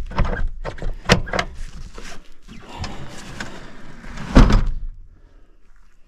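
A vehicle's doors and latches being worked: a series of knocks and clunks with a loud thump about four and a half seconds in.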